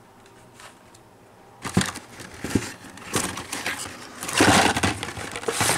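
Blister-packed Hot Wheels cars being pulled from a cardboard case and handled: irregular crinkling of the plastic blisters and card backs, with clicks and rustling that start a little over a second in and are loudest just past the middle.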